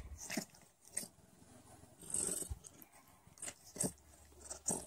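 Heavily pregnant Sphynx cat grooming herself, close to labor: a series of short, irregular wet licking sounds of her tongue on bare skin.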